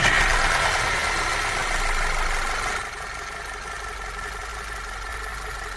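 Car engine idling just after start-up. It is a little louder for the first three seconds, then settles to a quieter, even run. The rattling noise caused by the sticking oil pressure control valve is gone, now that the valve has been cleaned.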